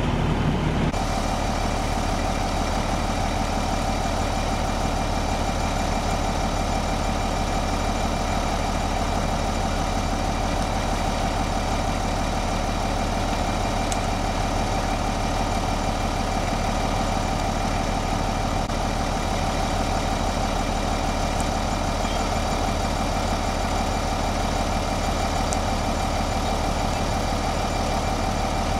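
Large vehicle engine running steadily at idle, a constant drone that starts abruptly about a second in.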